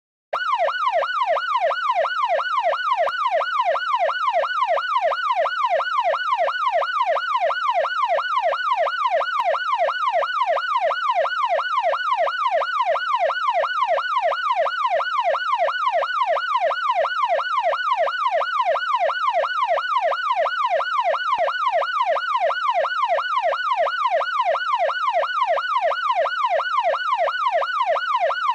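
Electronic police siren in a fast yelp, its pitch sweeping up and down about twice a second without pause. It starts abruptly just after the beginning.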